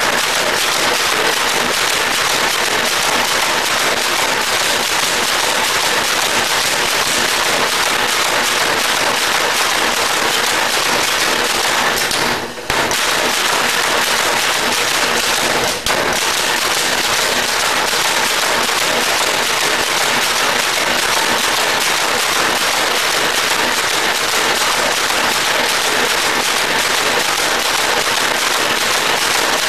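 Power hammer pounding hot steel in rapid, continuous blows, with two brief pauses around the middle.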